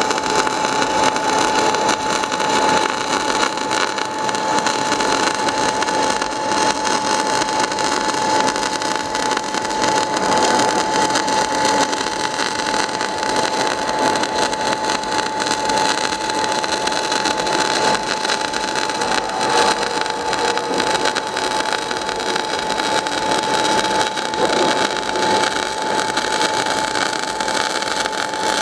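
MIG/MAG welding arc from a 500-amp semi-automatic welder, burning continuously with a steady crackling hiss while a fillet weld is laid in the flat 'boat' position. A steady high tone runs under it.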